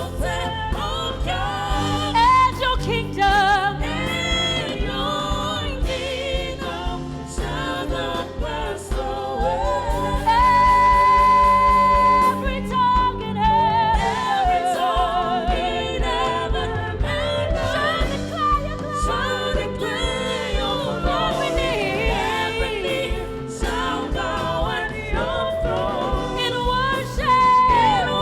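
Gospel worship singing with a band: a solo voice with vibrato and runs over backing voices and instruments, holding one long high note about ten seconds in.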